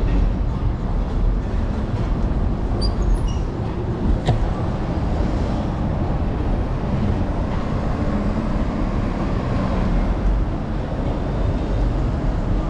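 Steady rumble of an electric scooter rolling over a brick sidewalk, picked up by a camera on its handlebars, with street traffic behind it. A single sharp click comes about four seconds in.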